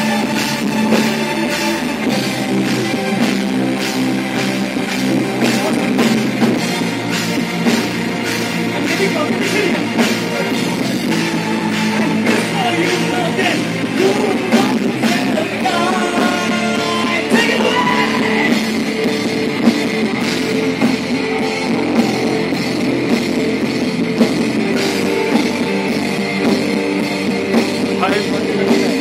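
Live rock band playing: distorted electric guitars over a steady drum-kit beat.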